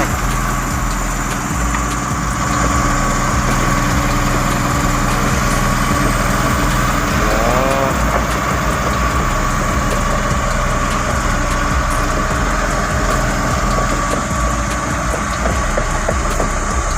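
Komatsu D85PX bulldozer's diesel engine running steadily with a constant whine, as the dozer pushes material. A brief rising-and-falling chirp rises above it about halfway through.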